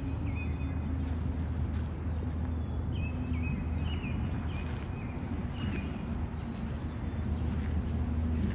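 Outdoor ambience: a steady low hum under a few short, scattered bird chirps, with occasional faint clicks.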